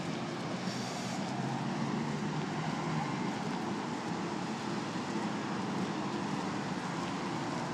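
Steady street traffic noise: a continuous low hum of vehicle engines and tyres.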